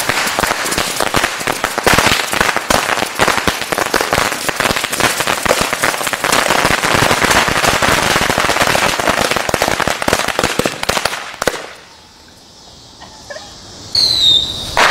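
Fireworks going off as a dense, rapid string of small firecracker bangs for about eleven seconds, stopping suddenly. Near the end, a high whistle that falls in pitch.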